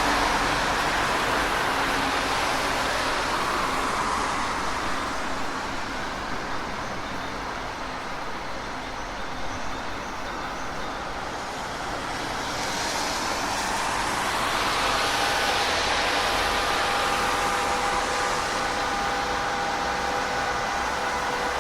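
Road traffic: a continuous wash of tyre and engine noise from passing vehicles, easing in the middle and swelling again as another vehicle approaches. A steady pitched whine comes in about two-thirds of the way through.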